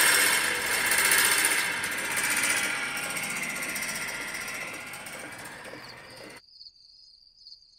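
A loud sound effect, a wash of noise that fades away over about six seconds and then cuts off suddenly. It is followed by faint crickets chirping.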